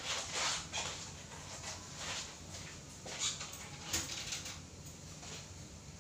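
Rustling and handling noises from a person moving about and adjusting clothing in a small room, in irregular short bursts, with a sharp click about four seconds in.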